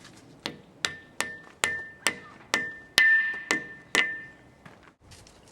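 A hammer striking steel about nine times, about two blows a second, each blow leaving a bright metallic ring; the blows grow heavier towards the end.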